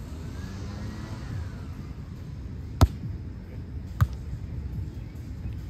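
Two sharp slaps of a volleyball being struck by hand, about a second apart, as in a bump and set during a rally, over a steady low rumble.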